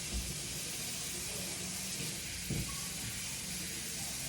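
A steady hiss, with two low thumps about two seconds apart.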